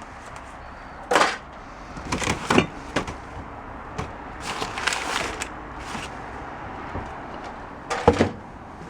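Items being rummaged through and shifted in a storage tote: scattered rustles and knocks, the sharpest about eight seconds in.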